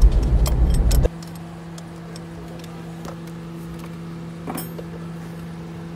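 Light metallic clicks and clinks of hands and tools working on the A/C compressor line fittings, with a slightly louder clink about four and a half seconds in, over a steady low hum. A louder low rumbling noise in the first second cuts off suddenly.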